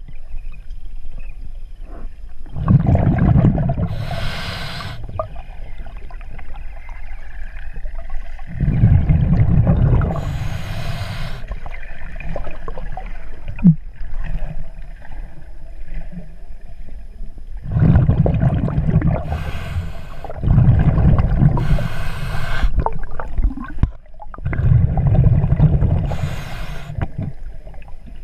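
A scuba diver breathing through a regulator underwater: about five breaths, each a loud low rumble of exhaled bubbles together with a short hiss from the regulator, with quieter steady water noise between them.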